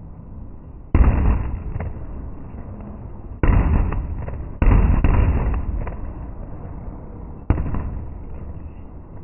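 Aerial firework shells bursting: four sharp booms, the first about a second in, two close together in the middle and the last near the end, each dying away slowly.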